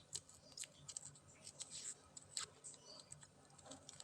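Faint, scattered small clicks and crackles of fingers handling a freshly peeled shallot and its dry, papery skin.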